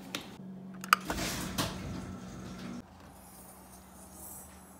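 Wheeled suitcase and car rear hatch being handled: a sharp click about a second in, then about two seconds of rattling and rumbling, over a faint steady low hum.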